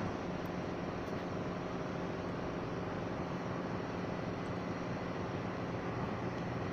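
Steady mechanical drone with a constant low hum, like a running machine, unbroken throughout.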